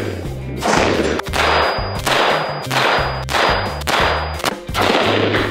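A string of rifle shots from an AR-15-pattern rifle, fired one at a time about every half second, each with a short echoing tail, over background music with a stepping bass line.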